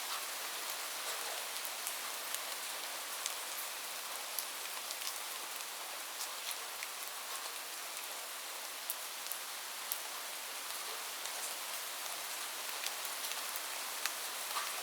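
Steady rain falling, an even hiss with scattered sharp ticks of individual drops striking a surface.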